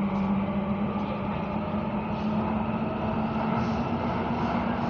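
Copenhagen Metro train running through a tunnel, heard from inside the carriage: a steady rumble and rail noise with a motor whine that rises slightly in pitch.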